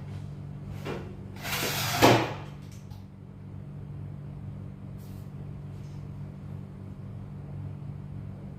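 A short rush of noise ending in a sharp knock about two seconds in, then a steady low hum.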